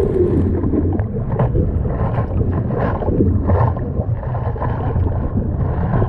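Seawater rushing and splashing around the nose of a surfboard as a surfer paddles prone, with wind buffeting the board-mounted camera's microphone. Several sharper splashes stand out over a dense, low rumbling wash.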